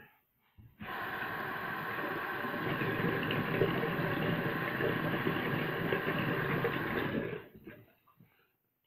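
Bathroom tap running cold water into the sink as a steady rush, turned on about a second in and shut off about a second before the end.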